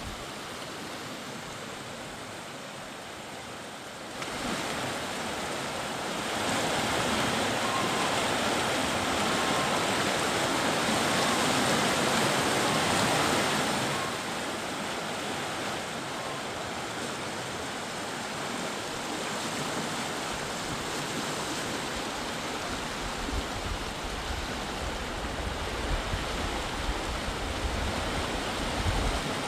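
Mountain river rushing: a steady wash of flowing water, louder for several seconds in the middle. A low rumble joins it near the end.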